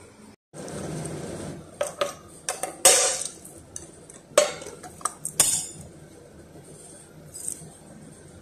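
Spoon and metal oats tin clinking and rattling against each other and a bowl as rolled oats are scooped out. It is a quick run of sharp clinks over about three seconds, with the loudest two about a second and a half apart.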